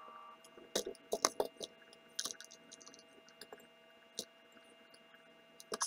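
A metal fork prying yolks out of halved hard-boiled eggs and knocking them into a plastic container: scattered soft clicks and taps, a dozen or so, irregularly spaced.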